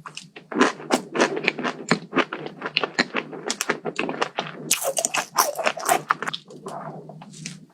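Close-miked crunchy chewing and biting: a person eating a crisp dessert, with rapid, irregular crackling crunches.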